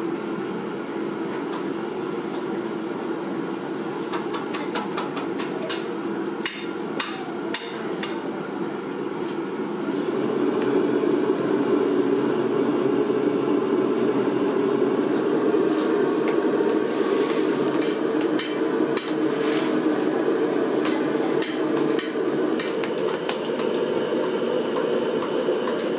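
Hammer strikes on a truck tyre and rim during tyre repair, coming in quick clusters of sharp blows. Under them runs a steady machine hum that grows louder about ten seconds in.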